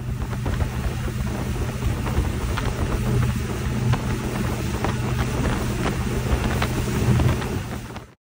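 Yamaha 250 SHO four-stroke V6 outboard running at speed, a steady hum under heavy wind on the microphone and rushing water from the wake. The sound cuts off abruptly near the end.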